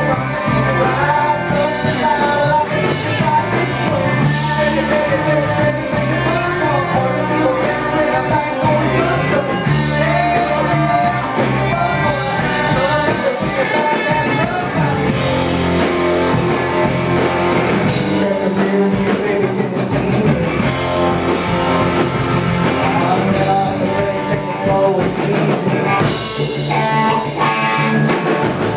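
Live rock band playing with a sung lead vocal over electric guitars, keyboard and drum kit, heard through the club's sound system.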